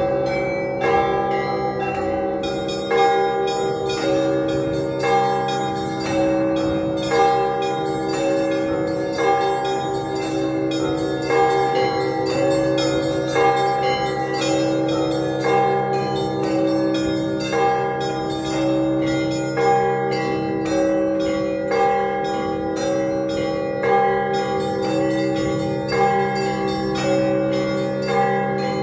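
Russian Orthodox church bells rung together in a zvon: a large bell struck about every two seconds over a steady, rapid pattern of smaller bells, their tones ringing on and overlapping.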